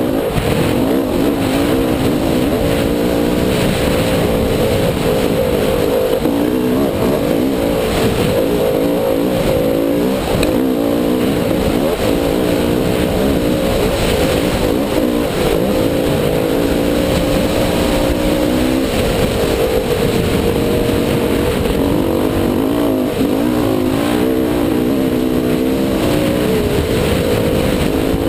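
Dirt bike engine running under way, its pitch rising and falling again and again as the throttle is worked over the trail, with wind rushing over the microphone.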